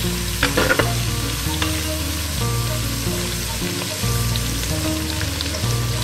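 Sliced shallots and curry leaves sizzling in hot oil in an unglazed clay pot. A wooden spatula scrapes and clicks against the pot a few times in the first two seconds as they are stirred. Low background music runs underneath.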